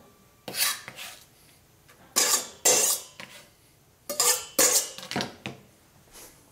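Chopped green onions being scraped off a plastic cutting mat into a stainless steel bowl. A flat scraper rasps and knocks against the mat and the bowl's rim in short strokes that come in three bunches.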